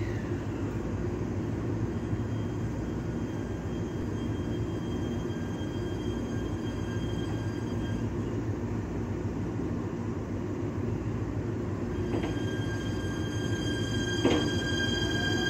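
ET127 series electric train standing at the platform with a steady low hum, then starting to pull away about twelve seconds in: a high, steady whine from its electric drive comes in and grows louder, with two short clunks as it gets moving.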